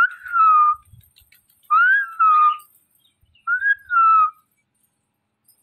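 Green parrot whistling: three clear whistles about a second and a half apart, each sliding up in pitch and then easing down.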